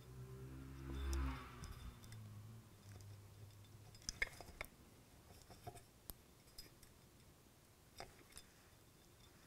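Small clicks and ticks of plastic parts as a bogie and drive shaft are worked into the chassis of an OO gauge model diesel locomotive by hand; the sharpest click comes about four seconds in. A low falling hum swells about a second in.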